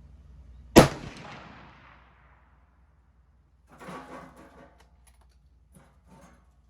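A single rifle shot from a 7.62x51 (.308) rifle, a sharp crack about a second in followed by a rolling echo that fades over a second or two. A few much fainter, short sounds follow a few seconds later.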